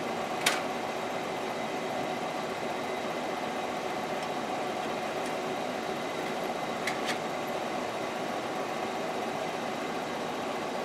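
A steady mechanical hum, with a sharp click about half a second in and another around seven seconds in as a plastic sheet is clamped into the frame of a benchtop vacuum former.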